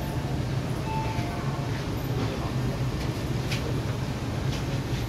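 Steady low hum of an MTR East Rail Line R-Train electric multiple unit standing at a platform with its doors open.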